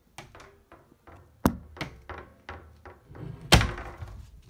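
An interior door worked by its lever handle: small latch and handle clicks, then two sharp thumps, the louder about three and a half seconds in.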